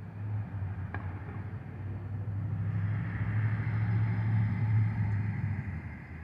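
A car driving past on the road: a low engine hum and tyre hiss that swell to a peak about four to five seconds in, then begin to fade.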